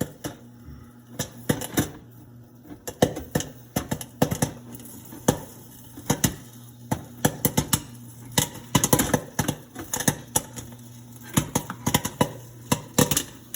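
Popcorn kernels popping in a popcorn machine's kettle: sharp, irregular pops that come thicker from about the middle on, over the steady hum of the machine's motor.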